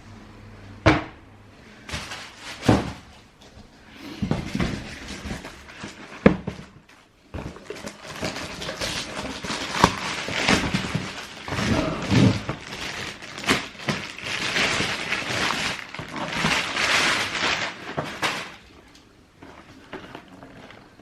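Cardboard shoeboxes being handled: a few sharp knocks and thuds of box and lid in the first several seconds, then a long stretch of crackly paper rustling as a new pair of trainers is unwrapped, dying away near the end.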